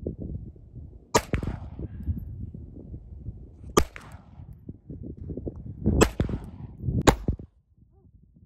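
Four shots from a Walther P22Q .22 LR semi-automatic pistol, fired singly a second or more apart: the first about a second in, the last two close together near the end. A low rumble runs underneath and drops away just after the last shot.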